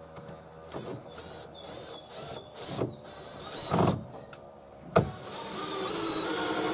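Red cordless drill-driver driving a screw through a metal angle bracket into a timber stud: several short bursts of the motor, a sharp click about five seconds in, then a longer run whose whine rises in pitch.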